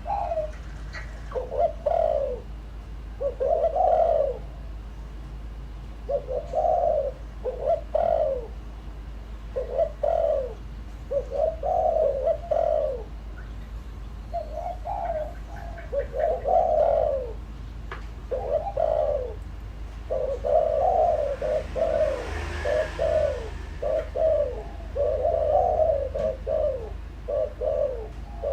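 Spotted dove cooing: short phrases of two or three low notes repeated with pauses, coming closer together in the latter half. This is the call of a decoy bird, used to provoke wild doves.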